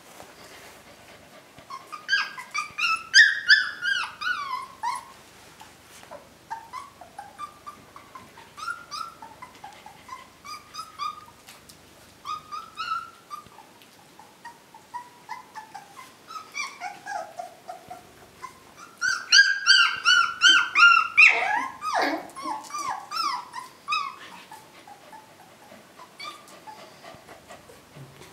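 Wolfspitz puppies whimpering and yelping in many short, high cries that fall in pitch, with two loud bouts of rapid squeals, about two seconds in and again around nineteen seconds in, and quieter scattered whines between.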